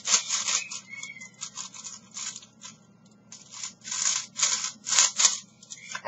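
The plastic layers of a 5x5 puzzle cube being turned by hand, in a run of quick, scratchy scraping turns with short pauses between them.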